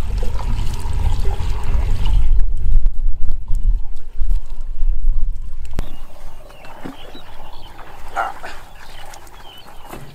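Water poured from a plastic bucket into a PVC pipe inlet, under a heavy low rumble of wind on the microphone. After about six seconds it turns quieter, with a short splash as a bucket is dipped into river water.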